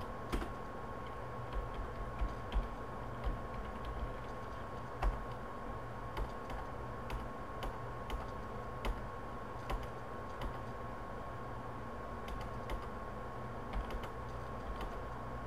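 Computer keyboard keys pressed singly, clicking at uneven intervals, roughly one or two a second, as terminal prompts are answered, over a steady background hum with a faint steady whine.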